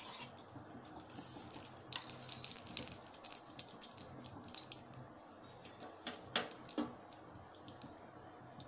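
Ghee melting in a hot, heavy-bottomed kadai: a faint, soft sizzle with many small crackles and a few louder pops.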